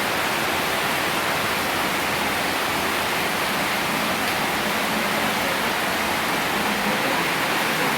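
Heavy rain pouring down steadily, an even dense hiss with no breaks.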